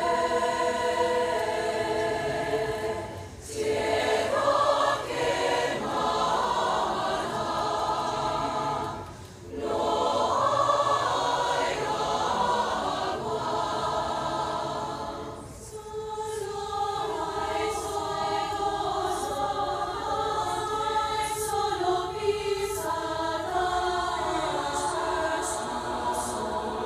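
Large mixed choir singing in harmony, sustained chords in long phrases with short breaks between them every few seconds.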